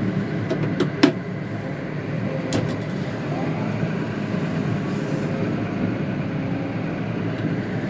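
Vehicle running steadily, heard from inside the cab, with a few sharp clicks or knocks about a second in and again around two and a half seconds.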